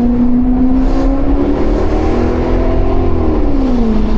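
Maserati GranCabrio's Ferrari-derived 4.7-litre V8 pulling under light throttle, its note climbing gently, then dropping back near the end as the revs fall.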